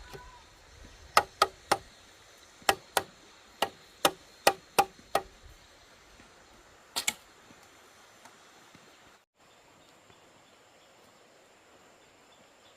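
A series of about ten sharp knocks or strikes in quick, uneven succession, then one more a couple of seconds later.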